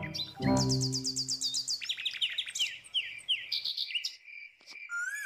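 Birds chirping: rapid trills and falling whistled notes, with a steady high insect trill setting in about halfway through. A low steady hum is heard briefly about half a second in.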